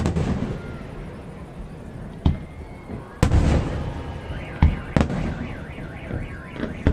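Fireworks shells bursting in sharp bangs, about six in all, the loudest a little over three seconds in, each trailing off in a rumble. About four seconds in, a car alarm starts up as a wavering siren tone rising and falling several times a second.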